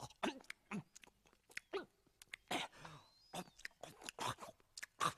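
A person chewing and munching food: a run of short, irregular mouth sounds.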